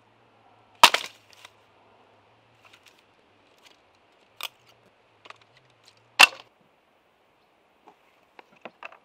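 Hatchet chopping kindling on a wooden stump: two sharp chops, about a second in and about six seconds in, and a lighter one between them, each followed by small clatters of split sticks. A few light clicks and knocks near the end.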